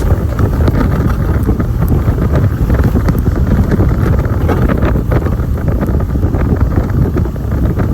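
Strong blizzard wind buffeting the microphone: a loud, steady rumble with crackling.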